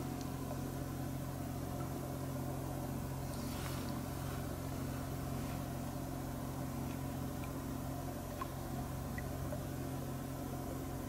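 A steady, unchanging low hum from a distant motor, with a few faint ticks.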